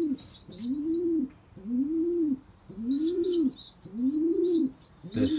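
Racing pigeons cooing in the loft: a low coo that rises and falls in pitch, repeated about once a second. High-pitched chirping from other birds sounds at the start and again from about three seconds in.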